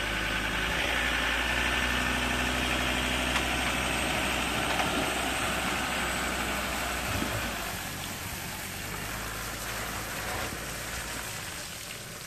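Pickup truck engine running steadily under load as it tows a boat trailer up a launch ramp, with water running off the hull and trailer; the sound fades after about eight seconds as the truck pulls away.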